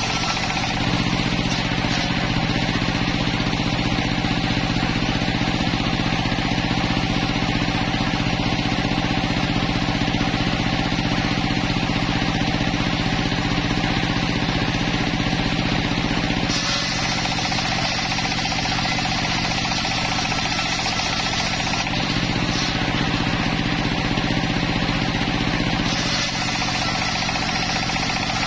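Homemade circular saw bench running steadily, its spinning blade ripping a long wooden board lengthwise with the steady drone of its drive motor underneath. The cut grows brighter and hissier about 17 seconds in and again near the end.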